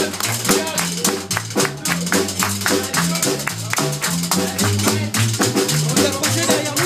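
Live band playing an instrumental passage: electric guitar, a washboard scraped in a steady rhythm, and drum kit, over a stepping low line.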